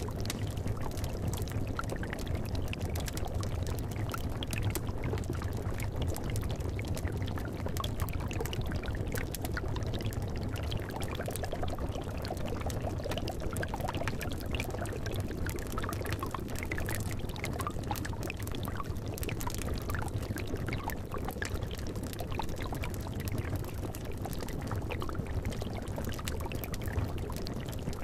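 Liquid in a cauldron bubbling continuously over a low steady rumble, with many small crackles and pops of a wood fire scattered through it.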